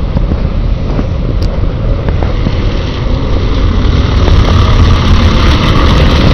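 Wind buffeting the camera microphone in heavy rain: a loud, steady low rumble with a hiss of rain over it, growing stronger about four seconds in.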